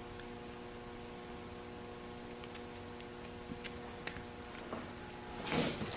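Steady low electrical hum with a few faint, sharp ticks and clicks of small parts and tools being handled, then a louder rustle near the end.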